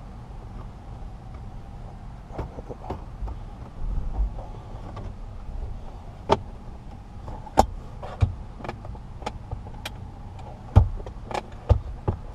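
Irregular sharp clicks and knocks from the centre armrest assembly being handled and fitted inside a car, with a low steady hum underneath.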